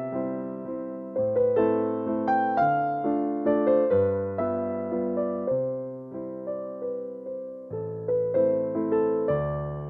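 Background piano music: a gentle melody of struck notes that ring and fade.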